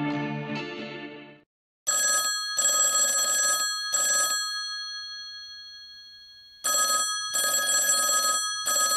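Guitar music stops about a second in. Then an old rotary-dial telephone's bell rings twice. Each ring is three quick clanging bursts, and the bell tone hangs on and slowly fades between the rings.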